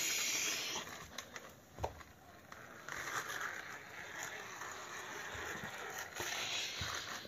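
Small plastic toy scooter pushed by hand across a hard floor, its plastic wheels rolling and rattling: a short loud burst at the start, scattered clicks, then a steadier rolling noise from about three seconds in.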